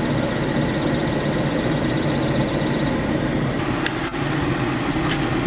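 Motorhome engine running low and steady, heard from inside the cab, with a short sharp click about four seconds in.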